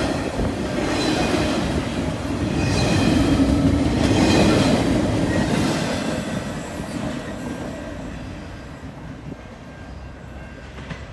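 Double-stack container well cars of a freight train rolling past, steel wheels rumbling and clacking on the rail with a faint squeal. The last car goes by about six seconds in and the sound fades away.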